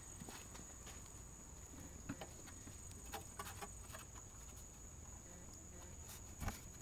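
Faint clicks and light taps of a plastic Ecotec engine cover being handled and pressed down onto its mounting posts, with one sharper knock near the end.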